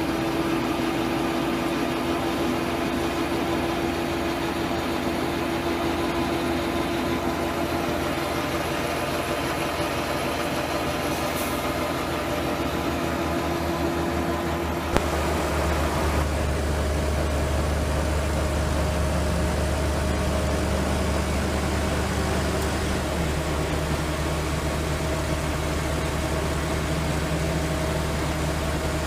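AGRAR-bag grain-bag unloader running steadily, its auger drawing grain out of the silo bag and carrying it up the elevator into a trailer. It makes a continuous mechanical drone whose pitch changes about halfway through.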